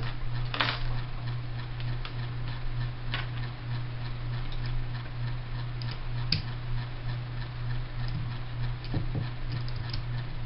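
Small clicks and taps of a Tippmann Project Salvo paintball marker's parts being handled as its stock is worked loose, with a sharper click about six seconds in, over a steady low hum.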